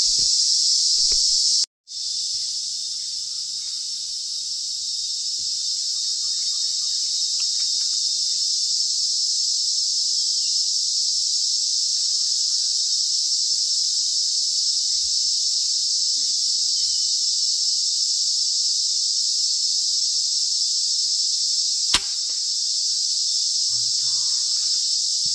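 Dense steady chorus of forest insects, a shrill high hum that breaks off for a moment shortly after the start. A single sharp click stands out near the end.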